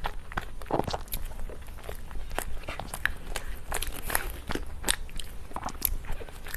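Close-miked eating of cake: biting and chewing, heard as many irregular sharp mouth clicks, several a second.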